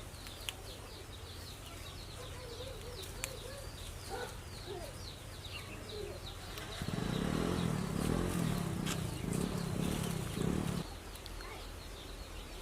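Small birds chirping over and over with short, falling high calls. From about seven to eleven seconds a louder low hum rises over them, then fades.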